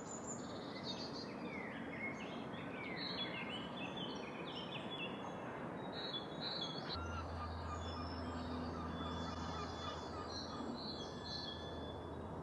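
Garden songbirds chirping and whistling in many quick, overlapping calls over a steady outdoor hiss. A low steady hum comes in about halfway through.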